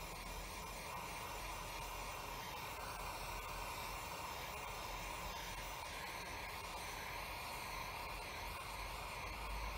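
Utility lighter's butane flame hissing steadily, held against heat-shrink tubing to seal a wire connection.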